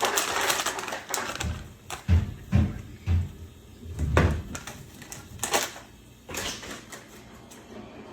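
Wrapper of a block of cream cheese crinkling as it is peeled off, then several dull knocks as the cheese and utensils are worked in a mixing bowl, with a few sharper clicks near the end.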